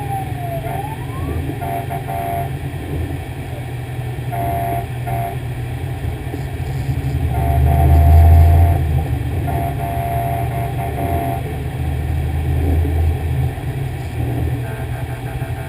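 Fire engine running under way, its diesel rumbling louder for a moment about halfway through. The siren winds down just after the start, followed by several short, steady horn blasts about every two to three seconds.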